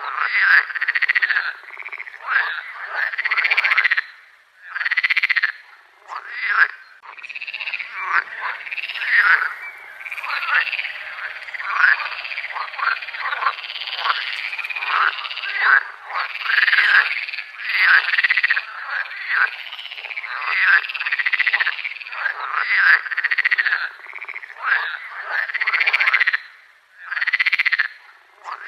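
A chorus of frogs calling: many overlapping croaks, each rising and falling in pitch, repeating almost without pause.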